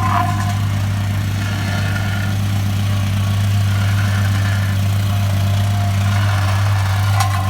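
An engine running steadily at an even idle-like speed, with a strong low hum.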